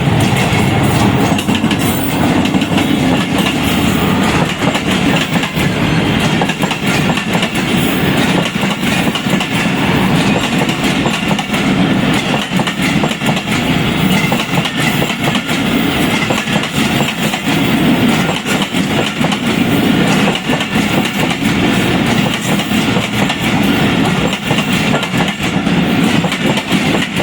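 Train running on the track, a steady loud rumble with rapid clatter of the wheels over the rails.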